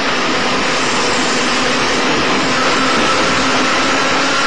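JNR 80-series EMU motor car Moha 80342 running, with its nose-suspended traction motors and gears giving a steady rumble and hiss. About halfway in, a higher whine comes in and rises slightly.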